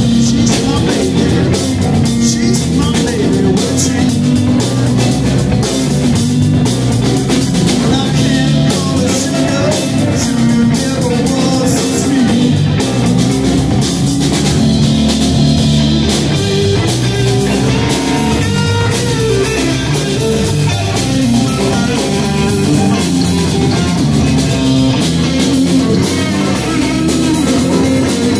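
Live rock band playing: electric guitars over a drum kit.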